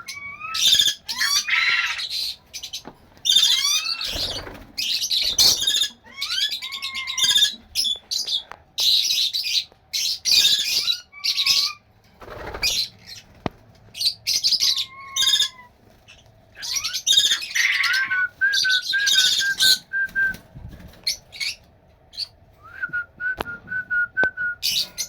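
Blue-streaked lory calling: harsh, shrill screeches again and again, mixed with whistled notes that slide up and down. Twice there is a quick run of short, even whistles.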